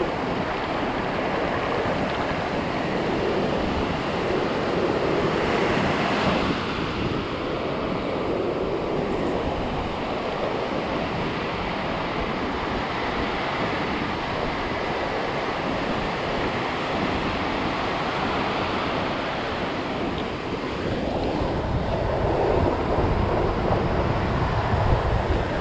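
Shallow surf washing in over sand around the wader's feet, with wind buffeting the microphone. It gets a little louder in the last few seconds, with a few bumps.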